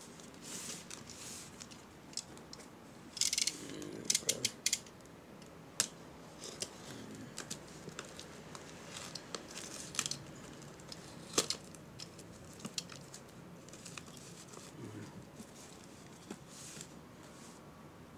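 Snap-off utility knife cutting through plastic wrap and packing tape on a cardboard box: irregular short scratchy slices and sharp clicks, with a bunch of quick clicks a few seconds in, and the plastic crinkling.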